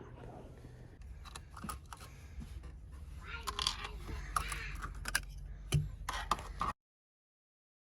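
Light clicks, knocks and rattles of hand tools working on a car's steering wheel hub and quick release as they are taken off. The sound cuts off abruptly about a second before the end.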